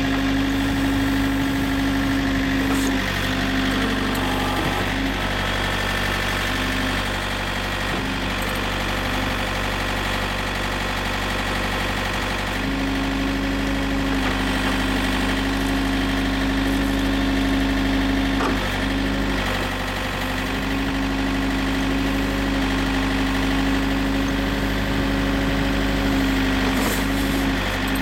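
Yanmar LX450 backhoe's diesel engine running steadily. A strong steady hum in its sound drops away for several seconds after the start, then returns, and there are a few light knocks.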